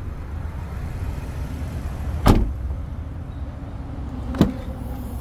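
A Ford Bronco door being shut with a solid thud about two seconds in, followed about two seconds later by a second, lighter knock, over a steady low rumble.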